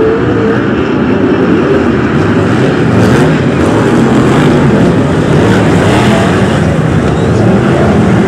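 A pack of BriSCA F1 stock cars racing, their V8 engines running loud and continuous as the field goes round the track.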